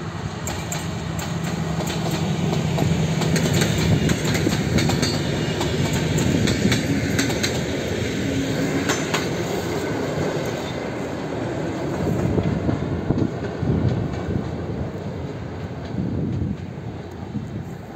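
SU4220 diesel locomotive passing with a train of passenger coaches: a low engine drone, then wheels clicking over the rail joints as the coaches go by. It grows louder over the first few seconds and slowly eases off in the second half.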